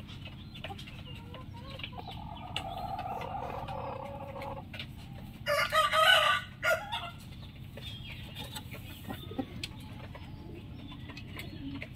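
Roosters crowing: one long crow begins about two seconds in, then a louder, shorter crow comes about five and a half seconds in, with a few clucks after it.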